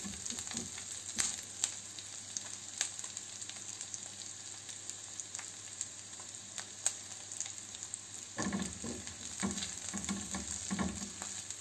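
Chopped onions sizzling gently in butter in a nonstick frying pan, being sweated soft rather than browned. A spatula clicks and scrapes across the pan, and the stirring gets busier about eight seconds in.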